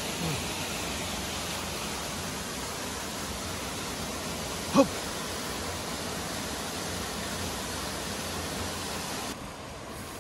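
Steady rushing of a rocky river, with one brief, loud pitched sound rising in pitch about halfway through. The rush drops in level near the end.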